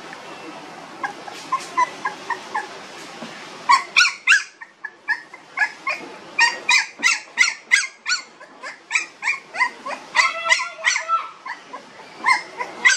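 Puppies about 25 days old crying in short, high-pitched cries. The cries are sparse and soft at first, then come several a second from about four seconds in.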